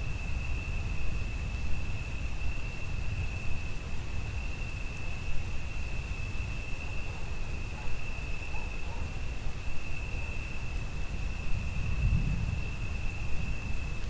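Crickets singing one steady, unbroken high-pitched trill over a continuous low rumble that swells about twelve seconds in.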